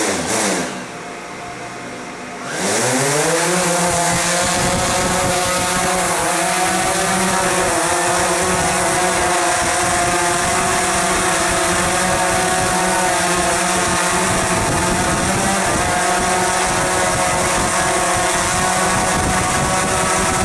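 DJI Phantom 3 Professional quadcopter's motors and propellers. A spin falls away in the first second, then the motors spin up about two and a half seconds in and hold a steady, loud whirring hum with propeller hiss.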